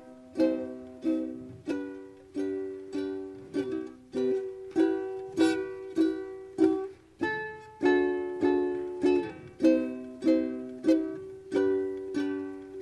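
Instrumental music: an acoustic plucked string instrument strumming chords, a little under two strums a second, each chord ringing out and fading before the next.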